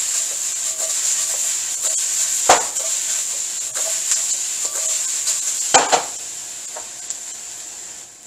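Chicken wings and diced peppers sizzling in a hot wok while a utensil scrapes and clanks against the metal as they are tossed, with two louder scrapes about two and a half and six seconds in. The sizzle fades over the last couple of seconds.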